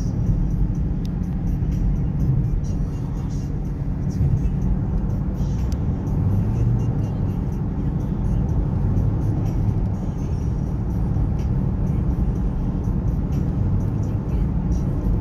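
Steady low rumble of a road vehicle in motion.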